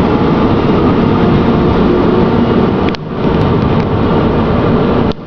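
Class 455 electric multiple unit pulling out past the platform, a loud steady rail rumble, dipping briefly about three seconds in and again near the end.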